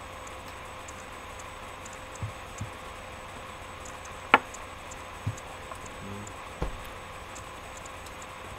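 A few soft knocks and one sharp click over a steady background hiss.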